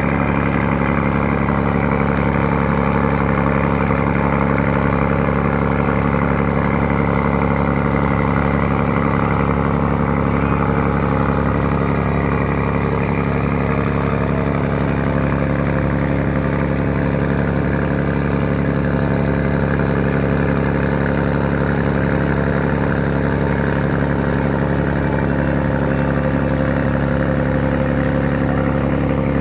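An engine running steadily at an unchanging speed, a constant hum with no let-up.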